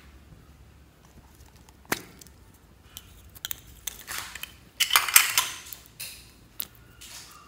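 Clear blue slime squeezed and stretched by hand, giving sticky crackles and little pops, with a dense crackle about five seconds in as the loudest part. A single sharp click comes about two seconds in.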